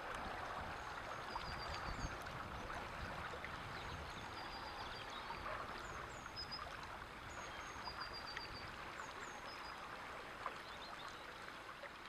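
River Meon chalk stream flowing: a steady, faint rush of running water, with short runs of high chirps over it now and then.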